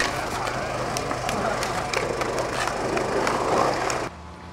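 Skateboard riding a concrete bowl: the wheels roll and carve on the concrete with scattered clacks, cutting off suddenly about four seconds in.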